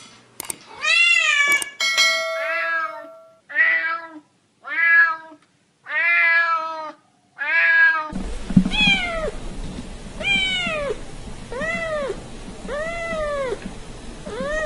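Domestic cats meowing repeatedly: a quick run of about six meows, then a second cat giving five drawn-out meows about a second and a half apart, each rising and then falling in pitch.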